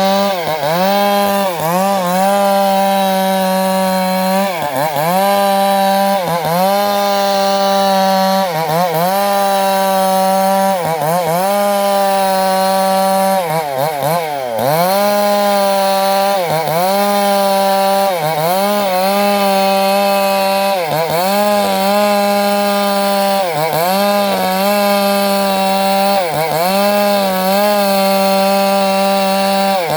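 Two-stroke chainsaw running at high revs while sawing teak wood. Its pitch dips briefly and recovers about every two seconds, with one longer, deeper dip about halfway through.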